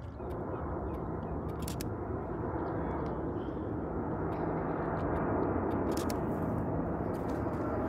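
Jet airliner on approach: a steady rushing engine drone with a low hum, growing slowly louder as the plane comes closer.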